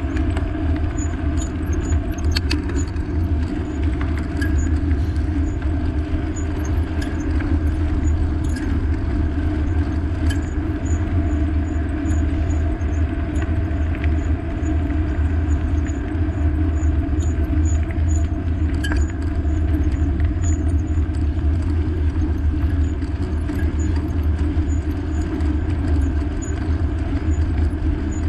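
Steady rumble of wind and road noise while riding, a constant low drone with a faint hum above it and scattered light ticks.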